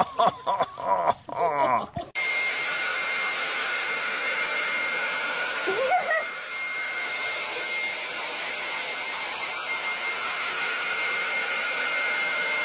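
A handheld hair dryer running steadily: a constant blowing rush with a steady high whine, starting abruptly about two seconds in. Before it, about two seconds of laughter and voices. A short baby's coo rises over the dryer about six seconds in.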